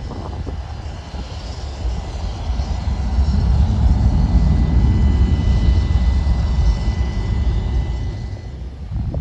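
Aircraft engines: a low rumble that swells to its loudest in the middle and eases near the end, with a steady high whine over it.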